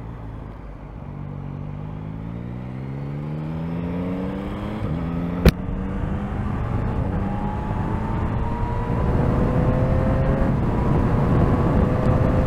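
2024 Yamaha MT-09's 890 cc three-cylinder engine accelerating hard, its pitch climbing through the gears, with a sharp click about five and a half seconds in. Wind and road rumble grow louder as speed builds.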